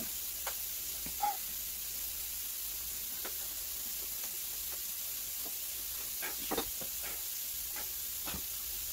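Steady background hiss with scattered light knocks, rustles and a short squeak, from rubber gloves being pulled on and a bucket being handled and set down on a wooden floor; a cluster of knocks comes about two-thirds of the way in.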